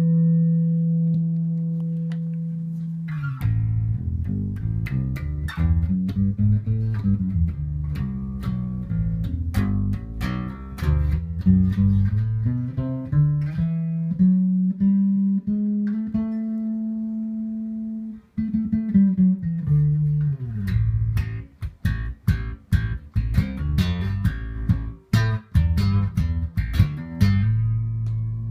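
Rickenbacker 4003 electric bass with toaster and horseshoe pickups, played through a Markbass amp and a 4x10 cabinet. A held note opens, then a melodic line climbs and falls to another long held note that breaks off. Quicker, shorter plucked notes follow near the end.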